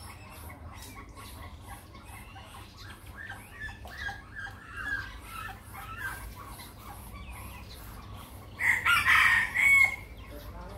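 Soft, scattered clucking from a small flock of junglefowl-type chickens, then a rooster crows once, loud and short, about nine seconds in.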